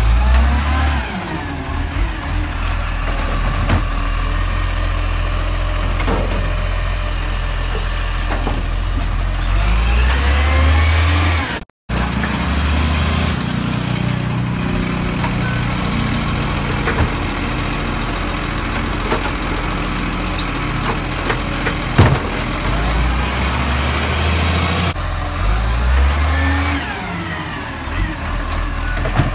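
Side-loader garbage trucks running on diesel, the engine revving up and down with a rising and falling whine as the automated arm lifts and empties wheelie bins. It is two separate collections, split by an abrupt cut a little before halfway, with a sharp knock about three-quarters through.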